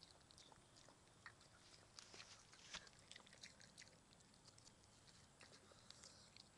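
Faint, irregular crunching and clicking of a Cairn terrier chewing grass and leafy weeds.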